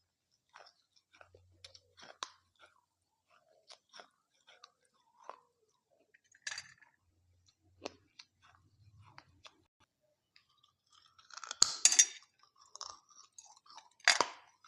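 Close-miked chewing of dahi papdi chaat: soft, scattered mouth clicks and crunches of the crisp papdi wafers, with a louder run of crunching about twelve seconds in and again near the end.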